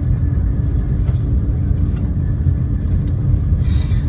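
Steady low rumble with a constant hum inside a Eurostar train carriage.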